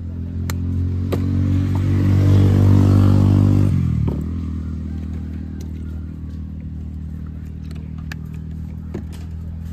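A motor vehicle's engine grows louder for about three seconds as it passes close by, then drops away with a falling pitch about four seconds in, leaving a steady engine drone. A few light clicks sound over it.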